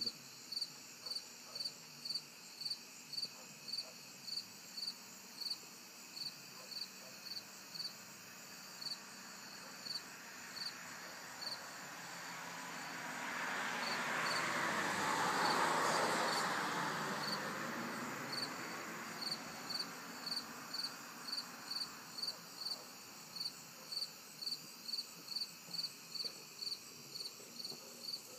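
A cricket chirping steadily, about two chirps a second. Midway a rushing noise swells up and fades away over several seconds, briefly covering the chirps.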